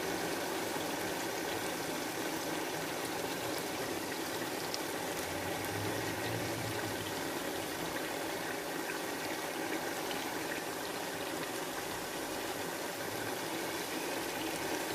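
Blended fresh tomato frying in oil in a cooking pot, bubbling steadily.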